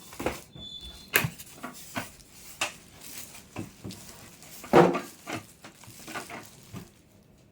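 Packaging and small machine parts being handled: scattered clicks, taps and rustles, the loudest a knock about five seconds in.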